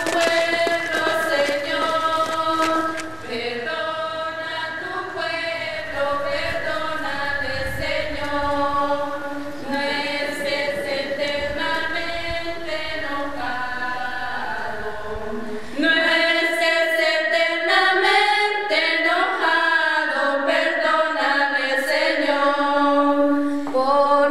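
A group of young women singing a hymn together in unison, choir-like. About sixteen seconds in, the singing becomes louder and fuller and the low rumble beneath it drops away.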